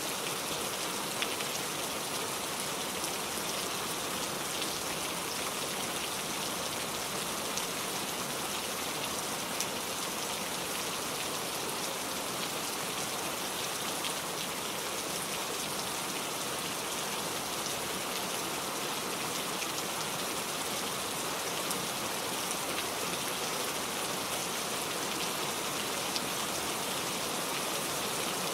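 Heavy rain falling steadily: a dense, even hiss of downpour with the ticks of single drops hitting a surface.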